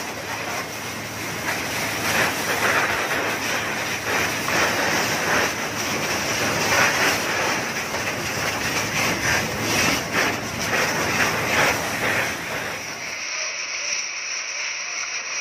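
Steady rushing hiss of a fire hose spraying water onto a burning roof. It changes abruptly about thirteen seconds in to a thinner, quieter hiss.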